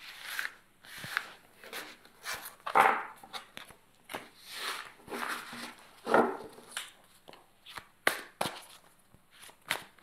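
Oracle cards gathered up from a cloth-covered table and shuffled by hand: irregular swishes, slides and light taps of the card deck.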